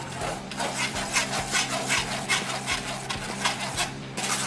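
Spoon scraping thick tomato-cashew gravy through a stainless steel mesh strainer, a quick run of strokes about four a second.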